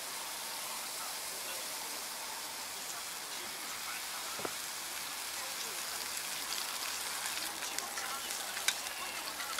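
Onions sizzling on a grill pan over a portable gas stove, a steady hiss, with a few light clicks of wooden chopsticks against the pan near the end.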